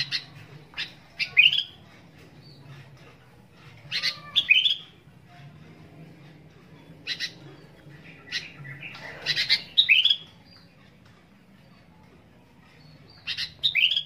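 Caged sooty-headed bulbul (kutilang) singing: short bursts of clear, bright notes and quick downward-sweeping phrases, repeated every few seconds with pauses between.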